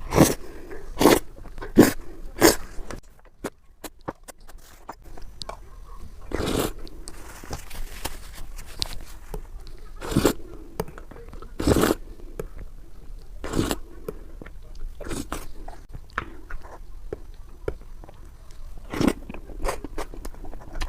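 Close-miked eating: a series of bites with chewing and mouth sounds between them, several bites in quick succession at the start, then single ones every few seconds.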